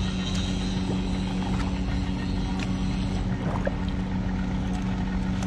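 A boat's motor idling, a steady low hum that holds one pitch throughout.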